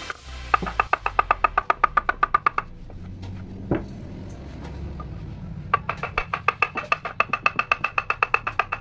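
Wooden mallet rapidly tapping a carving gouge into teak, sharp ringing knocks at about six a second. The tapping breaks off for about three seconds midway, with a single dull knock, then resumes.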